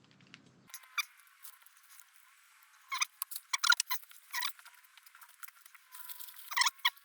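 Small blade scraping old gasket material off a Harley Evolution engine's gasket surface in short, light, scratchy strokes that come in small clusters. The residue is hard to remove, so it is being worked carefully.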